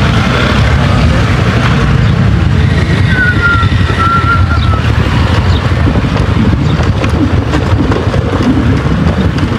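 Motorcycle riding, heard as a steady low rumble of wind buffeting the rider's microphone over the engine.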